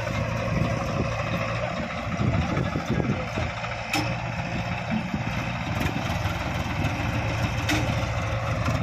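Swaraj 744 tractor's diesel engine running steadily under load as it pulls a fully loaded sand trolley over soft sandy ground, its note wavering briefly a couple of seconds in.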